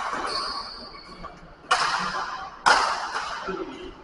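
Badminton rackets striking a shuttlecock in a rally: three sharp hits, the second and third about a second apart, each ringing out in the echo of a large sports hall.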